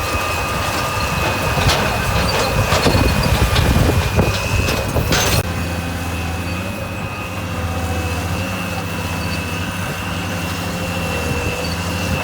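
Diesel engine of heavy earthmoving equipment running with a steady low hum and a high whine, with clattering and knocks over the first five seconds that stop abruptly, leaving steadier engine running.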